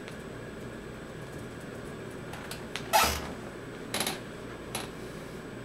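Steady hum of a Dell Dimension 4550 desktop computer's fans running, with a few short knocks over it. The loudest knock, a low thud about three seconds in, is followed by two smaller ones.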